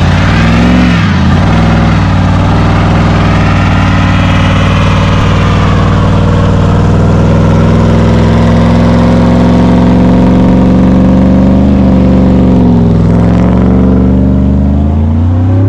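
GMC Sierra pickup's engine held at high revs through a burnout, running steadily and loudly, with the revs dipping briefly about a second in and again near the end.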